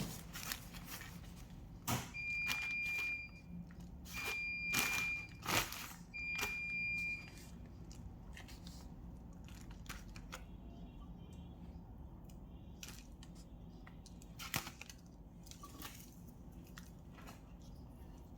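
Three long electronic beeps, each about a second long with about a second between them, amid scattered sharp clicks and knocks.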